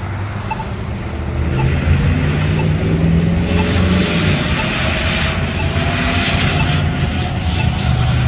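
Motor vehicle engines in street traffic, louder from about two seconds in, with a whine that slowly rises in pitch. A faint short beep repeats about once a second.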